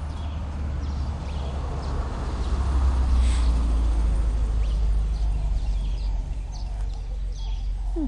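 Small birds chirping in the background, short high calls scattered throughout, over a steady low rumble that swells in the middle.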